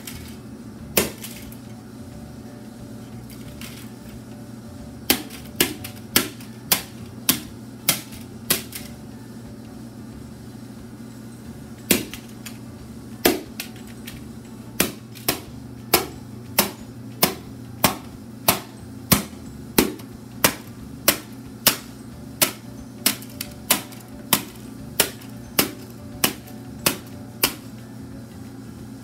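Claw hammer striking plastic VHS cassette cases to crack them open, a series of sharp blows. A few are scattered through the first half, then they come steadily, a little under two a second.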